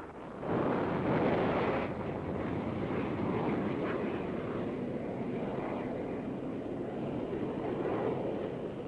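Saturn rocket lifting off, its engines giving a heavy rushing roar. The roar comes up sharply about half a second in, is loudest over the next second or so, then holds steady.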